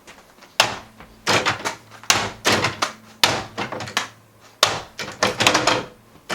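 Repeated sharp clacks and knocks from a home-built magnet-machine test rig as it is worked with hand switches and its flap swings and strikes, with a low steady hum underneath.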